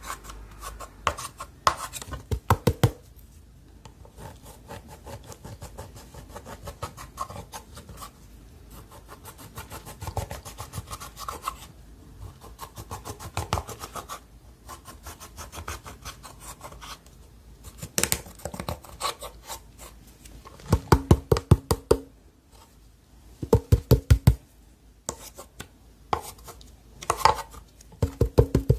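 Slime being squeezed and worked by hand, giving clusters of rapid crackling clicks and squelches, with the loudest runs of clicks in the second half.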